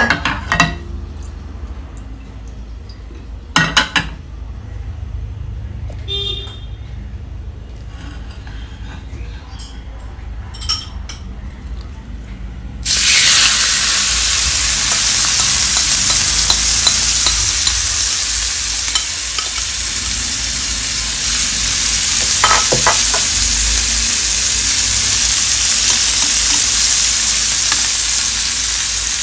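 Marinated chicken breast laid into a hot, oiled non-stick grill pan. It sets off a loud, steady frying sizzle that starts suddenly about halfway through and carries on. Before it there are only a few light knocks and clicks over a low hum.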